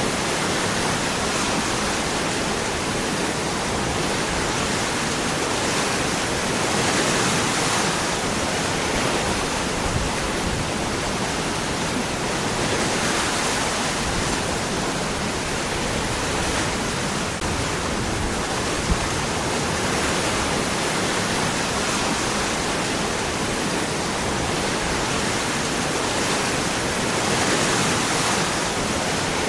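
Waterfall: water falling over and between rocks in a steady, full rush, swelling a little now and then.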